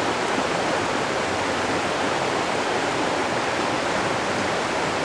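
A steady, even rushing noise at a constant level, with no clicks or other events.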